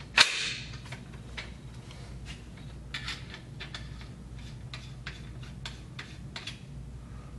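Metal parts of a Remington 870 pump shotgun: one sharp clack just after the start as the replacement barrel seats into the receiver. Scattered light clicks and ticks follow as the barrel nut is handled and threaded onto the magazine tube.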